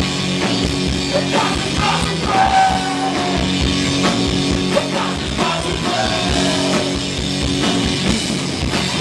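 Post-punk rock band playing a song live, loud and dense, with the full band and drum kit going throughout.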